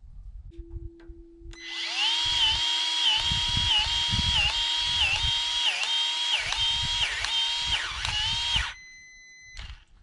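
Small cordless power-tool motor whining for about seven seconds. It starts about one and a half seconds in and cuts off near the end. Its pitch dips under load roughly every half second, and the dips grow deeper as it goes on.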